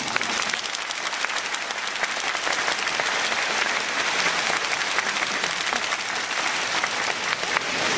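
Large audience applauding: many hands clapping in a dense, steady patter.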